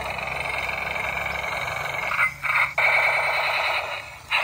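Battery-powered toy tank's electronic sound effects: a buzzy, pulsing tone from its small built-in speaker, cutting out briefly about two seconds in and again near the end.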